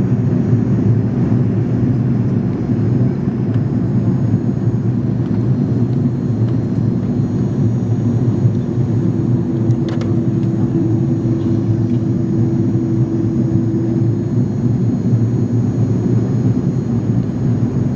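Airbus A300 jet airliner's steady rumble of engines and airflow, even throughout, with a faint steady tone that comes in partway through and a single sharp click about ten seconds in.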